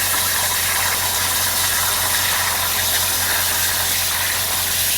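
A loud, steady hiss with an even low hum beneath it, as from a shop machine running.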